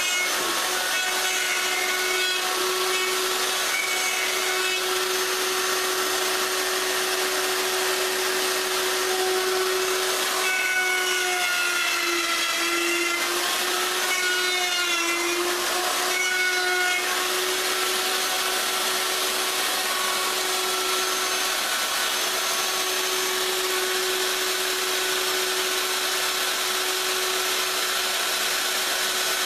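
Electric router running steadily as it cuts the wood of the tabletop edge. Its pitch sags and wobbles for a few seconds in the middle as the bit takes load.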